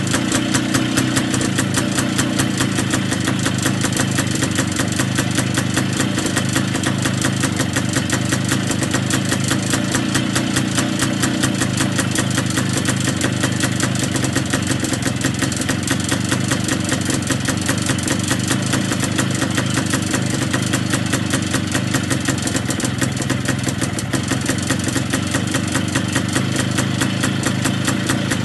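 Montesa Brio motorcycle's single-cylinder two-stroke engine running steadily, a fast, even beat of firing pulses with no change in speed.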